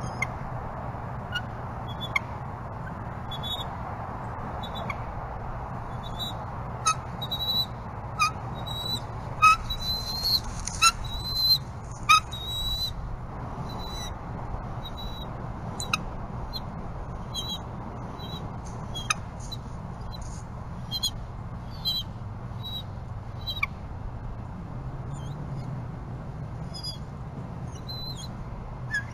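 Bald eagles calling at the nest: a run of short, high, thin chirps and whistles. They come in a loud flurry of rising calls from about seven to thirteen seconds in, around the male's landing with a fish, then turn sparser. A steady low background hum runs underneath.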